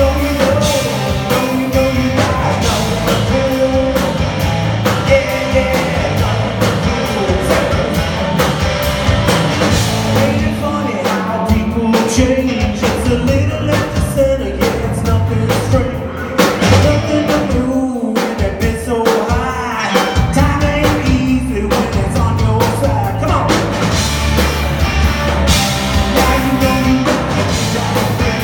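Rock band playing live: drum kit, electric guitar and a singing voice.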